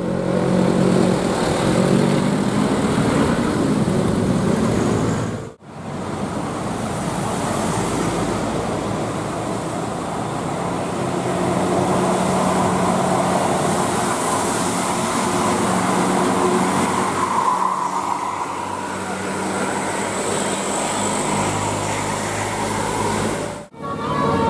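Road traffic: buses and other vehicles passing, with steady engine and tyre noise. The sound drops out abruptly twice, about six seconds in and near the end.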